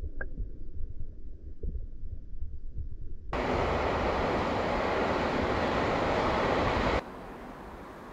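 Stream sound in three edited cuts. First a low underwater rumble from a camera below the surface of a shallow stream, with a few faint clicks. Then about three and a half seconds of loud, steady hiss that starts and stops abruptly. Then a quieter steady hiss.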